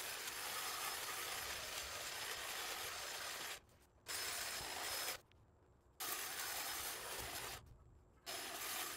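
Snapper 48V cordless hedge trimmer cutting a shrub, its sound sped up twenty times into an even hiss that cuts out abruptly three times, each for under a second.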